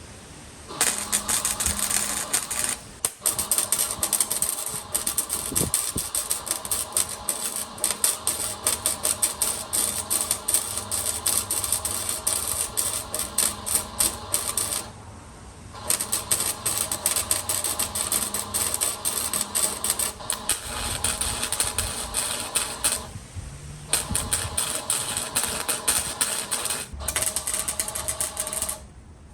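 Flux-core wire welder crackling and sputtering in runs of several seconds, with short breaks between beads, over a steady electrical hum.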